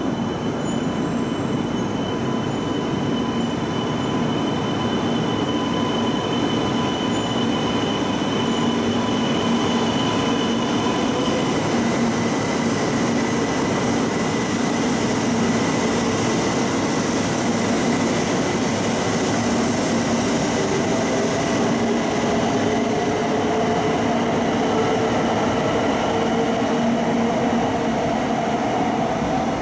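E2 series Shinkansen train moving along the platform track: a steady rumble with several whining tones, some of which climb in pitch in the second half.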